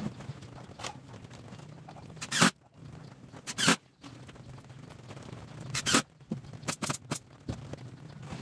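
Plywood speaker cabinet being shifted and turned on a wooden workbench: three short scrapes of wood sliding on wood, then three quick knocks about seven seconds in, over a low steady hum.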